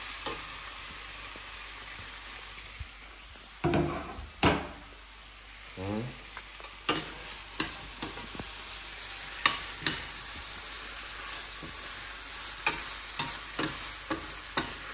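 Food sizzling as it fries in a pan, a steady hiss, with a utensil scraping through it about 4 seconds in and then knocking against the pan a number of times.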